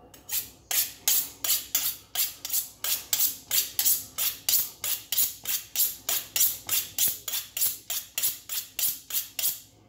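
Chef's knife being honed on a honing steel: a fast, even run of metal-on-metal scraping strokes, about three to four a second.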